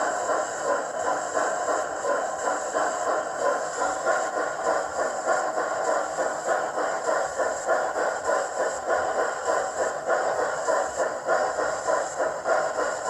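Sound decoder of a Hornby Black 5 (LMS 5MT) model steam locomotive playing a steady rhythm of exhaust chuffs, about two a second, over a constant high hiss.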